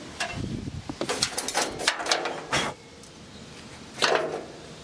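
Handling noises: a quick run of clicks, knocks and scrapes lasting about two seconds, then one short scrape about four seconds in as a hand brushes the sheet-metal casing of a scrapped gas instant water heater.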